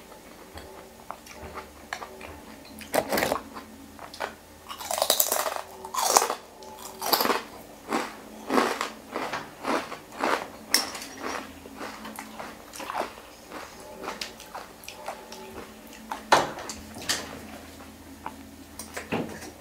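Close-up chewing and biting of noodle soup with fresh greens, in irregular wet, crunchy mouthfuls a second or so apart, with a fork and spoon stirring in the glass bowl.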